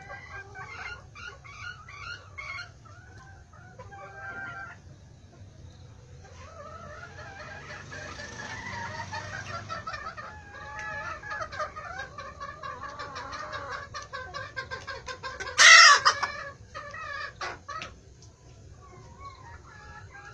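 A flock of chickens clucking and calling, many overlapping calls at once. About 16 s in, one brief loud harsh burst stands out above the rest.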